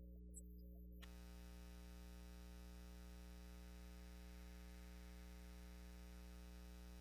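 Near silence: a steady low electrical hum, joined about a second in by a faint steady hiss.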